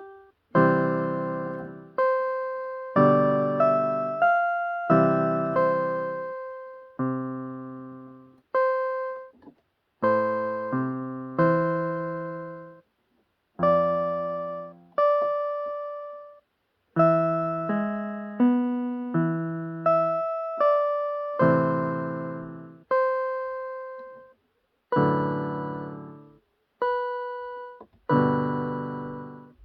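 Piano playing a slow piece, one chord or note struck at a time and left to fade, with short silent gaps between some of them.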